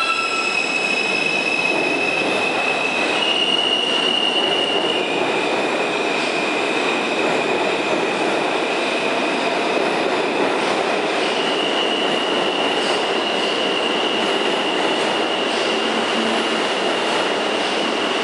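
R160 subway train pulling out of the station: a steady rolling roar of wheels on rail under a high electric whine from the propulsion, which holds one pitch and then jumps to a new one about three, five and eleven seconds in.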